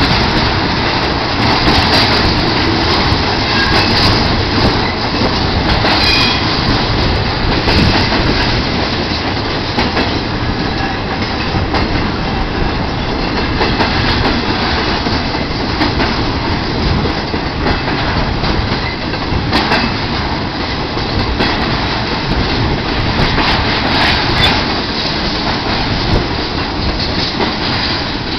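Freight train of flatcars carrying highway trailers rolling past close by: a steady loud rumble of steel wheels on rail, with the clickety-clack of wheels striking rail joints.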